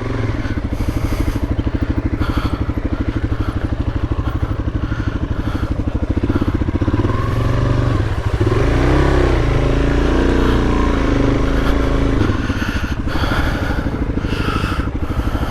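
Suzuki DRZ-400S single-cylinder four-stroke engine running at low revs while the bike picks its way down rocky single track. The revs rise and fall once for a few seconds around the middle.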